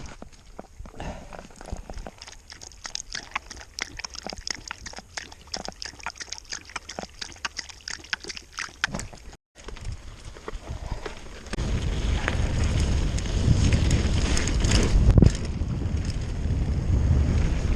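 Mountain bike on a rough trail: a stretch of rapid small clicks and rattles, then from about 11 seconds in loud wind buffeting on the microphone as the bike picks up speed.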